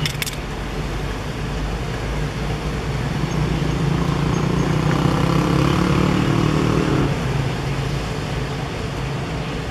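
Motor vehicle's engine and road noise running steadily; the engine note rises from about three seconds in, then drops away suddenly about seven seconds in.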